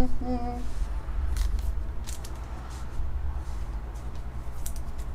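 Trading cards and pack wrapper being handled: scattered light clicks and rustles over a steady low hum, after a brief murmured voice sound at the very start.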